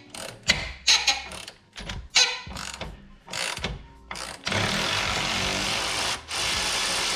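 Powered ratchet wrench running out a control-arm bolt that has just been broken loose. First come irregular short ratcheting clicks as the wrench is worked onto the bolt. Then from about four and a half seconds a steady whirring as the tool spins, with a brief break about six seconds in.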